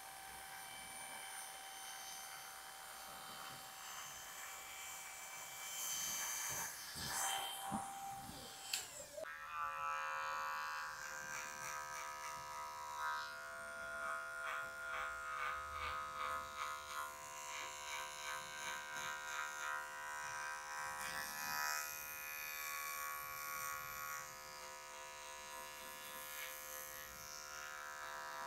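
Electric hair clippers buzzing while cutting short hair. About nine seconds in the pitch slides down and the buzz settles into a lower, steadier hum.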